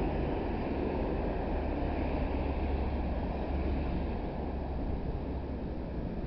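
Wind buffeting the microphone: a steady, rumbling rush with no break.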